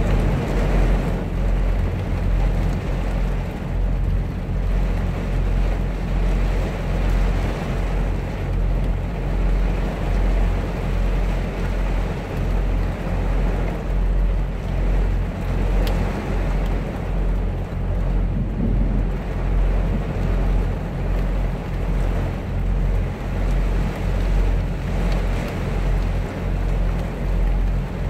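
Heavy rain drumming on the roof and windshield of a Kenworth semi truck's cab, heard from inside, with a steady low hum from the idling truck underneath.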